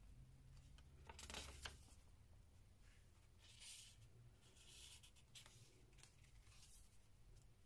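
Soft paper rustling as a page of a handmade junk journal is turned about a second in, followed by a few quiet sliding swishes as a paper tuck card is drawn out of a paper page pocket and pushed back in.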